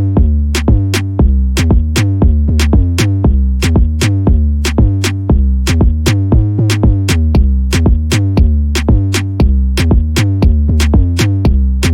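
Electronic background music with a drum-machine beat and a heavy bass line.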